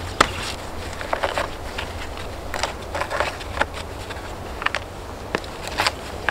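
Stones clinking and knocking against each other at irregular intervals as they are handled and set into a dry stone wall, each a short sharp click.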